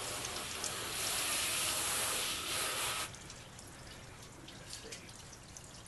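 Garden hose spray nozzle rinsing a wet convertible soft top: a steady hiss of water spray that stops abruptly about three seconds in.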